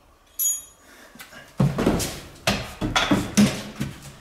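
A bicycle cargo trailer being handled during assembly. About half a second in there is a short metallic clink that rings briefly. From about a second and a half in comes a run of irregular knocks and clatter from its tube frame and plastic cargo box.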